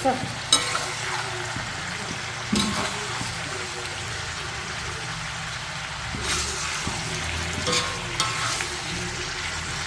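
Chicken pieces and radish with ginger-garlic paste sizzling steadily in a pan, stirred with a few knocks of the utensil against the pan.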